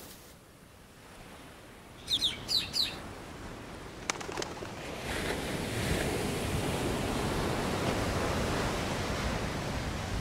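Three quick bird chirps about two seconds in, then a wash of surf that swells from about five seconds in and holds steady: seashore ambience.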